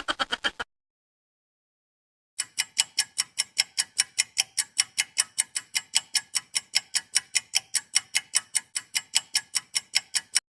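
Clock-ticking sound effect: sharp, evenly spaced ticks at about five a second, starting about two seconds in after a short silence and stopping just before the end. At the very start, the tail of a faster rattling effect cuts off.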